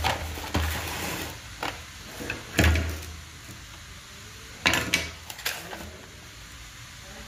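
Parts of a disassembled AEG electric drill, its plastic housing halves and metal motor parts, knocking, clicking and rattling as they are handled and set down on a workbench. The loudest knock, with a low thump, comes about two and a half seconds in, and a quick cluster of sharp clicks follows around five seconds in.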